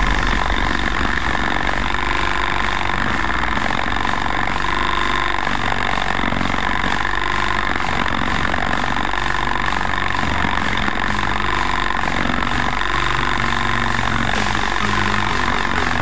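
Powered olive-harvesting pole with a red comb head, its motor running steadily as it works through the olive branches, heard through a camera mounted on the pole itself.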